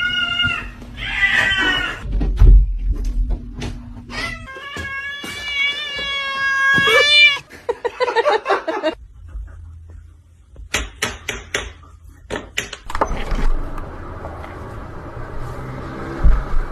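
Domestic cat meowing loudly, short calls and then one long drawn-out wavering meow of about three seconds, followed by a run of sharp knocks.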